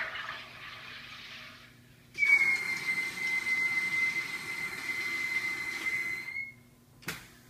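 SodaStream soda maker forcing CO2 into a bottle of water. A soft hiss comes first; about two seconds in, a loud hiss with a steady high-pitched whistle runs for about four seconds. A sharp click follows near the end.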